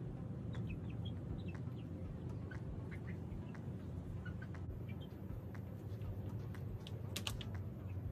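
Backyard hens making soft, short calls, a scattering of brief high peeps and clucks over a steady low background rumble. A couple of sharp clicks come about seven seconds in.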